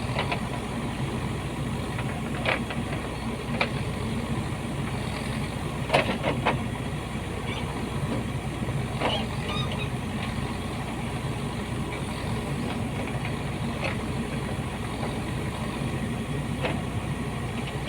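Backhoe excavator's diesel engine running steadily, with short sharp knocks every few seconds, the loudest about six seconds in.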